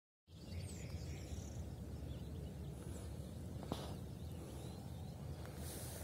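After a split second of dead silence, countryside ambience: faint bird chirps over a steady low rumble, with a single sharp click about midway.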